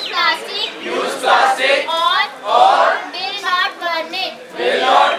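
A group of students chanting in unison, in short phrases with brief pauses between them.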